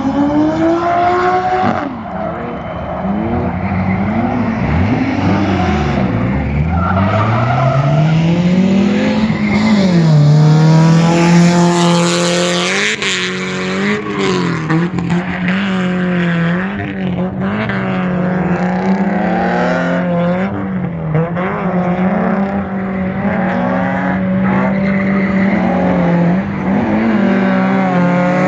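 Drift cars sliding through a course: engines revving up and down, then held at high revs with quick dips as the throttle is blipped, under a hiss of tyres squealing and scrubbing sideways on asphalt.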